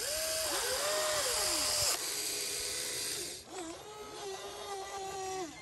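Huina RC excavator's electric motors whining in a string of short runs as the boom and bucket are worked. Each run rises in pitch as it starts and falls away as it stops, with a longer run from about three and a half seconds in.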